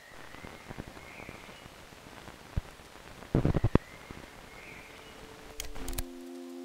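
Faint hiss with scattered crackles and pops, including a short burst of loud crackling about three and a half seconds in. Near the end a held chord of several steady tones sets in as the music begins.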